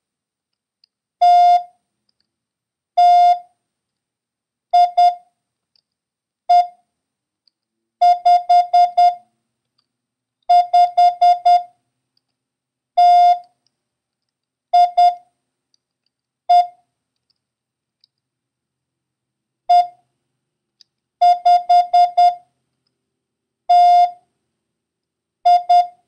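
International Morse code practice tone: a single steady beep keyed into dots and dashes, sending one character at a time with pauses of a second or more between them: T, T, I, E, 5, 5, T, I, E, E, 5, T, I.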